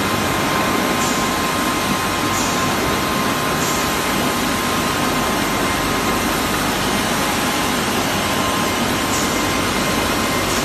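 Rotary bottle labeling machine running at high speed, labeling mineral water bottles: a steady mechanical din with a constant high hum through it.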